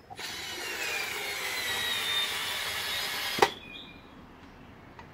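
Bosch Go Gen 3 3.6-volt cordless screwdriver on torque setting 8, running as it drives a screw into camphor wood without a pilot hole. Its whine falls slowly in pitch as the motor slows under load. It stops after about three and a half seconds with one sharp click.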